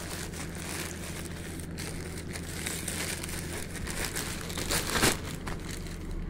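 Plastic courier mailer bag crinkling and rustling as hands pull a bubble-wrapped package out of it, with a sharper crackle about five seconds in.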